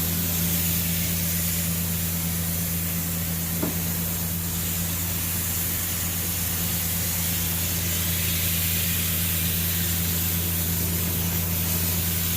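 Butler truck-mounted carpet extraction system running steadily through a rotary extraction tool: a low machine drone under the steady hiss of spray and vacuum suction as grease and dirt are pulled out of the carpet.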